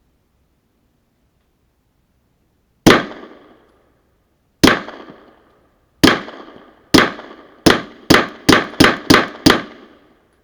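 Suppressed Glock 17 9mm pistol firing ten shots, the first three a second or more apart, then faster, about three a second near the end; each shot is a sharp crack with a short ringing tail. The pistol cycles reliably with the suppressor fitted.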